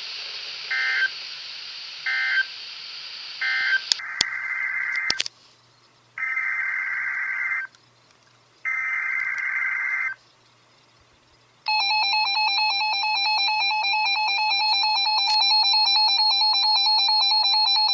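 NOAA Weather Radio over static: three short EAS end-of-message data bursts, then three longer buzzy EAS SAME header bursts with silent gaps between them. About twelve seconds in, a loud, fast-warbling siren tone from a Reecom alert receiver begins and holds steady in place of the usual 1050 Hz weather radio alert tone.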